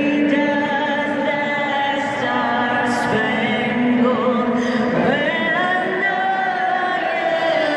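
Singing: voices holding long notes with a wavering pitch, sliding to new notes every second or two.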